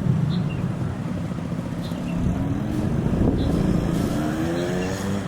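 A motor vehicle engine running, its pitch rising over the last couple of seconds as it speeds up.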